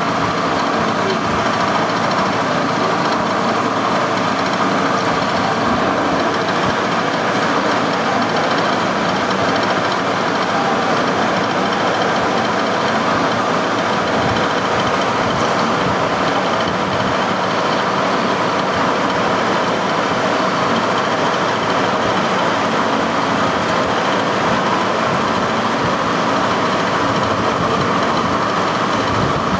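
Metalworking machine tool running steadily, machining a sprocket gear, with an even, unbroken mechanical noise.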